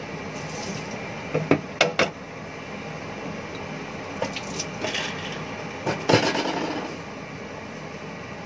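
Dishes and utensils knocking and clattering at a kitchen sink and counter: a few sharp knocks about a second and a half in, then a longer run of clatter between about four and seven seconds, over a steady background hum.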